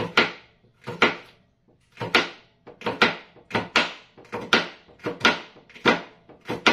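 Knife slicing a bitter gourd (ampalaya) on a cutting board: a steady run of sharp chops, about two a second.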